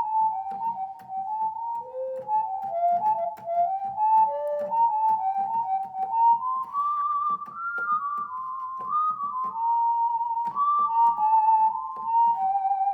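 Korg N264 keyboard playing a single-note melody on a soft, pure-toned lead voice over a steady accompaniment of drum hits and chord pulses. A held note near the end has vibrato.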